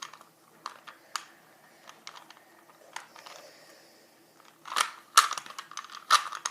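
Plastic 3x3x3 Rubik's Cube being turned by hand while an algorithm is worked through. Scattered single clicks of the layers come first, then a quick run of louder clicking turns about five seconds in.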